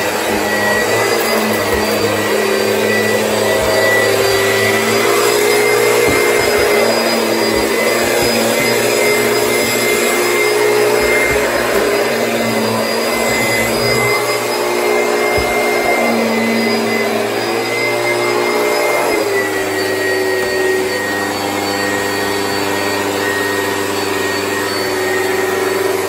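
Oreck XL upright vacuum cleaner running steadily, its motor whine shifting slightly in pitch now and then as the head is worked over carpeted stairs and floor.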